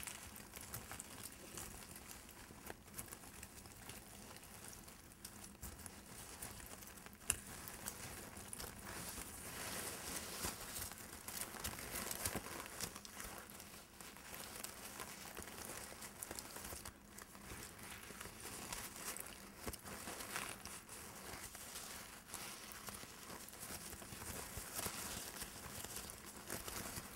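Close-up rustling and crinkling of a dried-flower arrangement (dried eucalyptus, dried filler sprays and an artificial rose) being handled and stroked by fingers. It makes a continuous, soft, crackly rustle full of small ticks, with one sharp click about seven seconds in.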